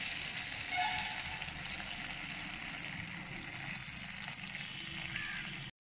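Cooking oil sizzling steadily in a wok (kadhai) as freshly poured oil heats over leftover turmeric-coated prawn residue. The sound cuts off suddenly near the end.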